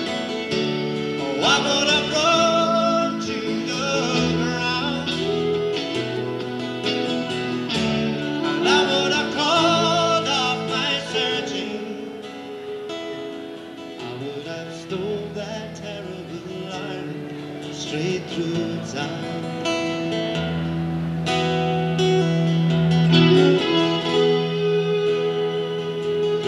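A man singing a song while strumming a steel-string acoustic guitar.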